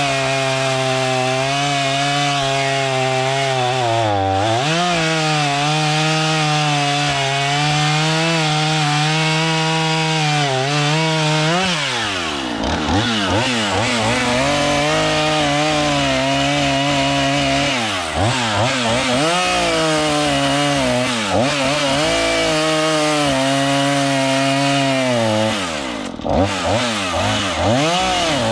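Chainsaw running at cutting speed through wood, its engine note sagging and recovering several times as the chain loads up in the cut.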